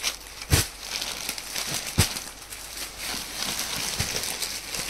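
Plastic packaging and paper wrappers crinkling and rustling as a folded cloth suit is handled and shaken open, with a few short knocks from the handling.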